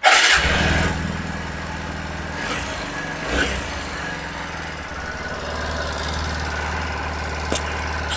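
TVS Apache RTR 160 4V single-cylinder engine starting and then idling steadily, louder for about the first second after it catches. It carries the valve-train noise the mechanic is demonstrating, which he puts down to a tappet or rocker arm fault.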